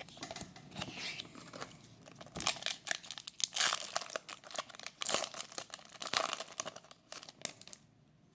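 Foil trading-card booster pack wrapper being torn open and crinkled in the hands: a run of dry crackles and rips, busiest in the middle, dying away near the end.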